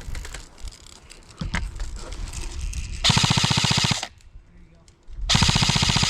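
Airsoft gun firing close by on full auto: a rapid burst lasting about a second, then a second burst starting about two seconds later. Fainter scattered shots come before the first burst.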